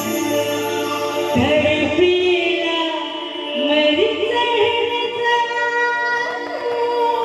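A woman singing a jatra song into a microphone over loudspeakers, with long held notes and gliding vocal turns over sustained instrumental accompaniment.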